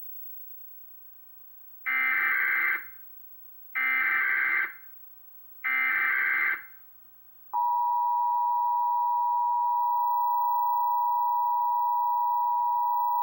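Emergency Alert System test on cable TV: three short bursts of warbling SAME header data tones about a second apart, then the steady two-tone EAS attention signal (853 and 960 Hz) starting a little over halfway through and holding on.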